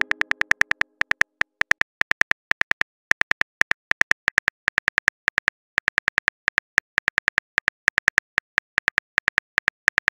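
Phone keyboard key-tap clicks from a texting-story typing effect, coming fast and unevenly, about six a second in runs with short pauses. The tail of a pitched chime fades out in the first second.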